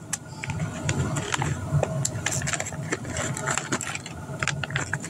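Plastic toy robot parts clicking and rattling as they are handled and fitted together: many short, irregular clicks over a steady low rumble.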